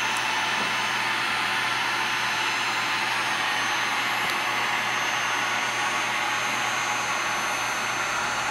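Handheld electric heat gun running steadily, its fan blowing hot air in an even rush with a faint high whine.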